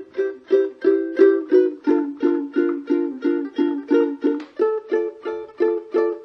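TUTTI JR-10 ukulele, with a linden top and an ABS plastic back and neck, strummed in a steady rhythm of about three strokes a second. The chord changes a couple of times.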